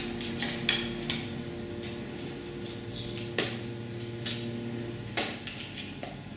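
Scissors snipping through brown kraft paper, a series of short crisp cuts: several in quick succession in the first second, then single snips a few seconds in and near the end.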